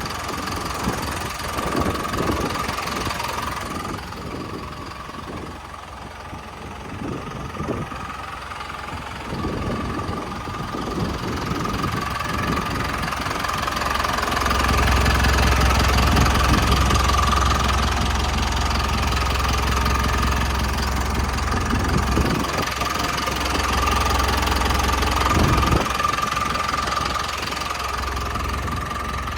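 Hyundai HD78 truck's diesel engine running at idle, with a steady high whine throughout. A deeper rumble comes up about halfway and the sound grows louder.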